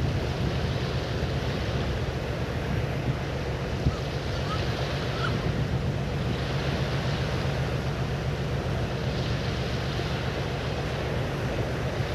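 Wind rumbling on the microphone over a steady rush of water that swells and fades every couple of seconds.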